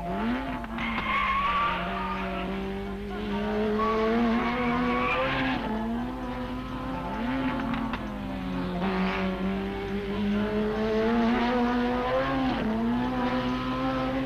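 Toyota Celica racing car's engine running at high revs. Its note climbs slowly and drops back abruptly several times, as with gear changes.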